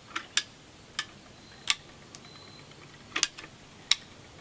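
Caulking gun ratcheting out construction adhesive: about six sharp, irregular clicks of the trigger over a few seconds.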